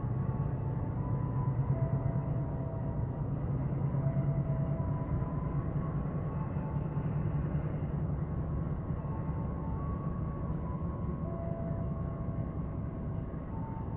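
CC206 diesel-electric locomotive hauling passenger coaches slowly past: a steady low engine drone with rolling wheel noise, and a few faint brief squealing tones above it.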